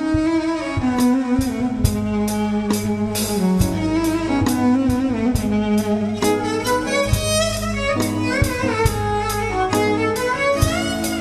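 Background music: a string melody over a steady percussion beat.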